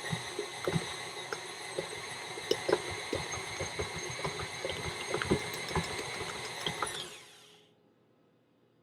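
KitchenAid stand mixer's electric motor running with a steady whine while kneading pizza dough, with irregular thuds and slaps of the dough against the bowl. About seven seconds in it is switched off and the whine falls in pitch as the motor winds down.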